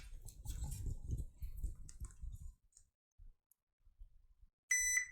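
Light clicks and scraping of multimeter probes on a circuit board, then near the end a short high electronic beep from a digital multimeter in diode mode as the probes touch the diode.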